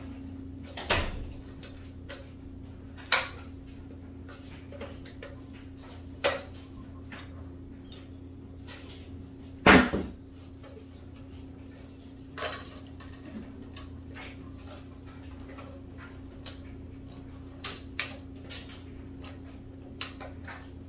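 Irregular sharp plastic clicks and clacks as a knockout tab on a recessed light's plastic junction box is worked loose with pliers, the loudest snap about ten seconds in. A steady low hum runs underneath.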